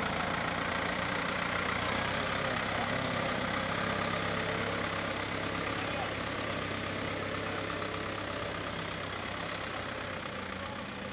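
Farm tractor's engine running steadily as the tractor drives off across a field, growing slightly fainter toward the end.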